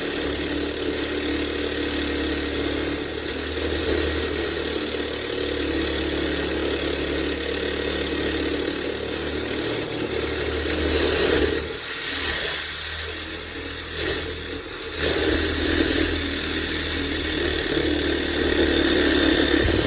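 Handheld power cutting tool running under load while cutting through a truck-bed mounting bolt, a steady motor hum with a high hiss. It eases off twice for a moment past the middle, then cuts on again.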